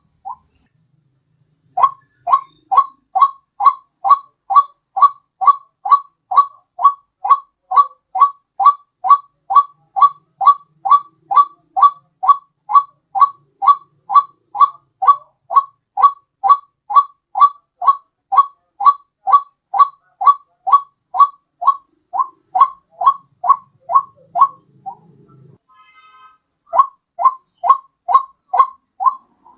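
White-breasted waterhen (ruak-ruak) calls played as a bird-lure recording: an even, rapid series of short notes, a little over two a second. The series pauses briefly just after the start and for about two seconds near the end.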